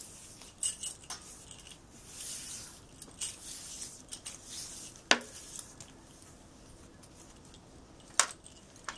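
Light metal jingling and clinking of bangles on a moving wrist, in scattered bursts, with two sharp clicks about five and eight seconds in.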